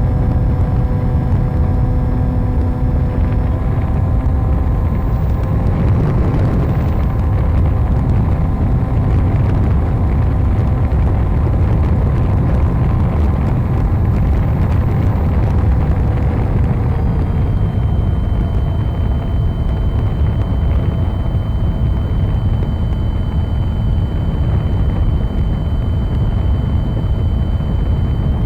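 Motor and propeller of a 3D-printed RC scale plane in flight, picked up by the onboard camera: a steady hum with a dense rush of wind over the airframe. The hum's pitch shifts slightly partway through, as the throttle changes.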